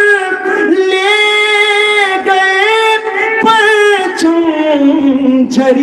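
A man singing Urdu devotional verse (kalam) in a melodic recitation, drawing out long held notes that glide from one pitch to the next.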